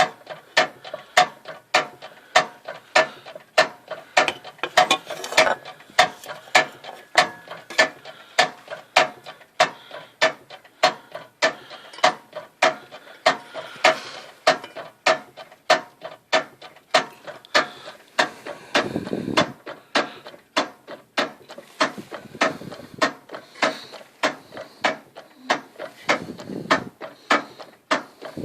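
Porsche 944 transaxle drivetrain giving a steady run of sharp metallic clicks or clunks, about two to three a second, with a little ringing after each. This is the lash and clunking whose cause is being traced. A few softer low rumbles come in over the second half.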